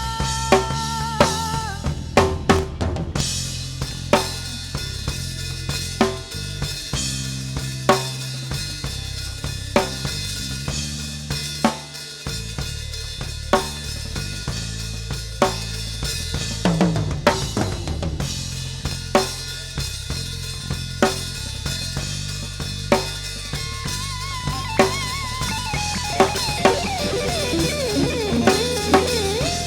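Live band playing an instrumental passage, led by a drum kit: a sharp hit about every second over kick drum and a steady bass line. In the last few seconds a lead instrument comes in, bending its notes up and down.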